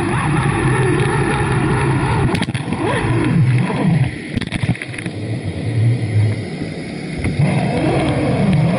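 Muffled underwater rumble with a low, steady hum, picked up by a GoPro in its waterproof housing lowered into the sea. The sound drops quieter for about three seconds in the middle, then comes back.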